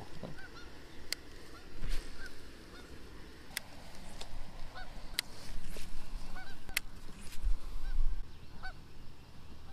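Geese honking in a scattered series of short calls, with a few sharp clicks between them over a low rumble.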